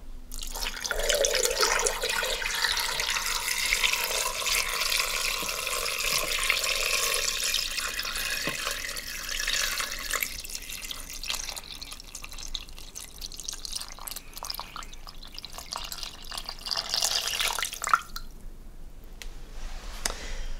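Water poured in a steady stream from a glass measuring jug into an Instant Pot's stainless steel inner pot over chunks of meat. The pour is heaviest for about the first ten seconds, thins after that, and stops near the end.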